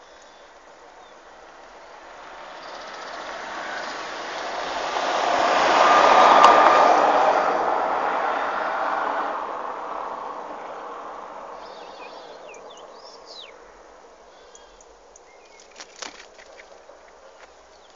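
A passing vehicle: a rush of noise that swells for a few seconds, peaks with a faint steady whine, then fades away over several more. A few short bird chirps follow, and a couple of sharp snaps near the end.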